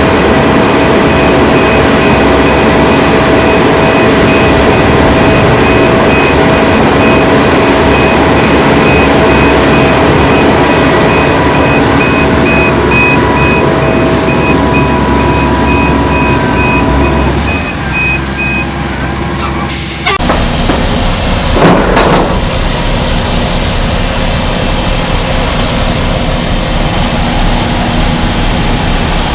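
Heavy truck engine running, with a reversing alarm beeping at an even pace until about two-thirds of the way through.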